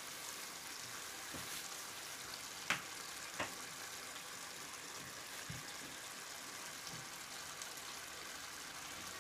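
Beef keema cooking in a steel pot over a low gas flame, a steady soft sizzle as its liquid cooks off and the oil comes up. Two light clicks about three seconds in.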